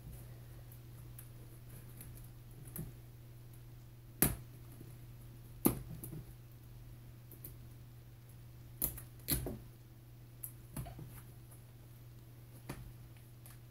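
Handling noise from a shipping box being opened: about six sharp, scattered clicks and knocks, the loudest about four and six seconds in, over a steady low hum.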